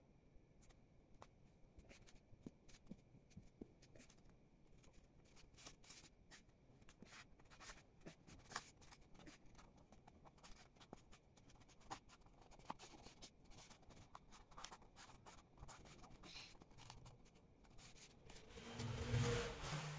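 Paper rustling and crinkling as a sheet of origami paper is folded and creased by hand: scattered small crackles and rubs, with a louder burst of handling noise near the end.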